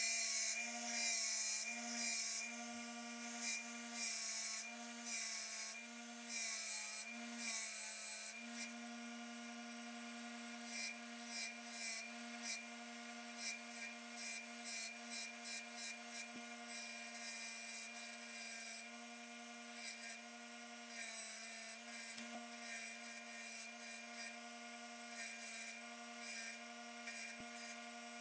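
Bench grinder with a wire wheel running with a steady motor hum, its wire bristles scratching against a small metal washer in repeated short passes to strip rust.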